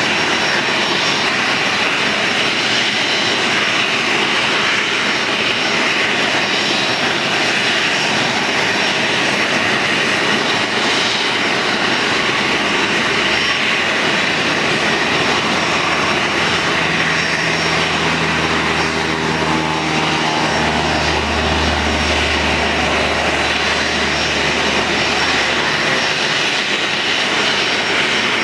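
Boeing 737-300's CFM56 turbofan engines running steadily at idle, a loud whine and hiss. A low rumble joins in for about ten seconds in the middle.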